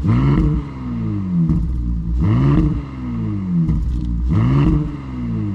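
Porsche Cayenne E-Hybrid's 3.0-litre twin-turbo V6 revved through an aftermarket sport exhaust, heard from the tailpipes: three throttle blips, each rising and falling over about a second, roughly two seconds apart.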